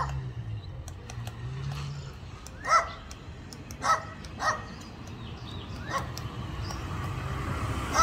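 Ground woodpecker pecking at tree bark while feeding: a scatter of light taps over a low steady hum. Four short bark-like calls ring out through the middle seconds, the loudest sounds.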